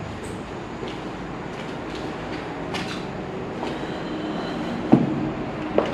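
A steady low rumble of a passing heavy vehicle or train, with a sharp knock about five seconds in and a smaller one near the end.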